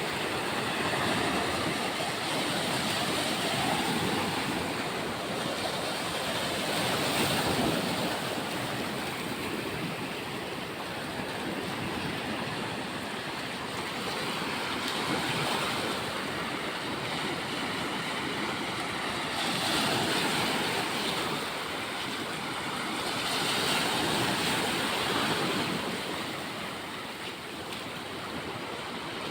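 Sea waves breaking and washing on a shore, swelling and easing every few seconds, with some wind on the microphone.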